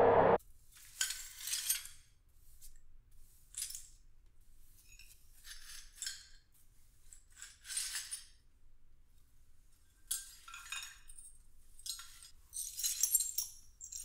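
A low musical drone cuts off just after the start, then a broom sweeps a hard floor: about a dozen short, irregularly spaced swishing strokes.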